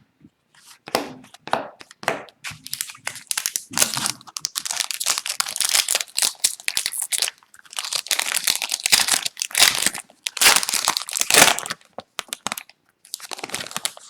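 Foil wrapper of a hockey card pack crinkling and tearing as it is handled and ripped open, in irregular crackly bursts with brief pauses.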